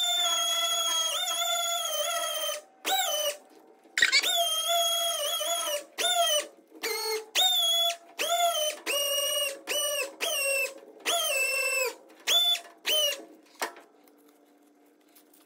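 Pneumatic random orbital sander with a 600-grit disc, dry-sanding a guitar body's polyester finish to level it. It gives a high whine, steady for the first few seconds, then is triggered in short bursts about once a second, each rising in pitch as it spins up. It stops a couple of seconds before the end.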